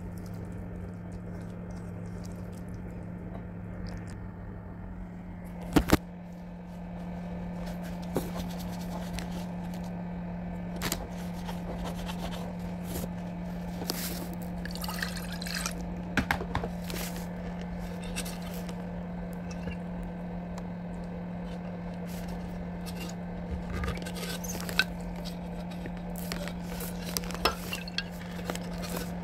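Boiled dal being poured and spooned into a pan of fried green masala: liquid splashing and dripping, with scattered sharp clicks of a utensil against the pan and a pair of loud knocks about six seconds in, over a steady low hum.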